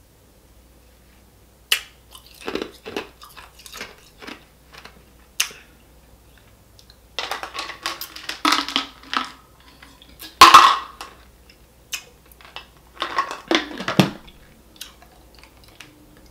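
Drinking from a plastic bottle and handling it and its cap: scattered clicks and knocks, with bursts of gulping and mouth sounds. The loudest knock comes a little past halfway.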